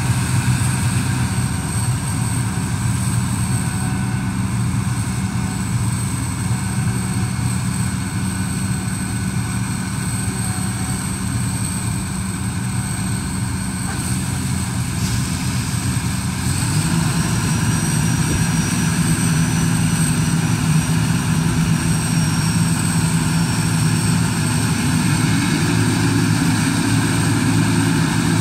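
Combine harvester running steadily at work: a continuous engine drone with a steady high whine above it. The drone grows louder a little over halfway through.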